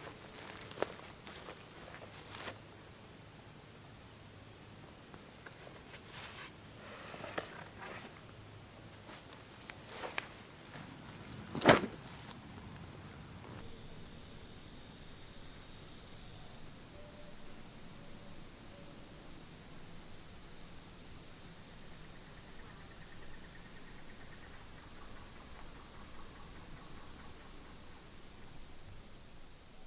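Steady high-pitched drone of a chorus of insects such as crickets or katydids. A few soft crackles of steps in leaf litter come in the first dozen seconds, and a single sharp snap or click sounds about twelve seconds in.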